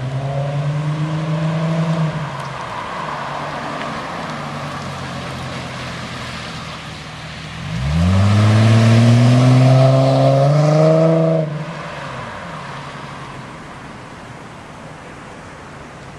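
2008 Ford Mustang's 4.0-litre V6 revved through its exhaust. A short rev at the start settles back toward idle, then a sharp rev about eight seconds in is held for about three and a half seconds before dropping back to idle.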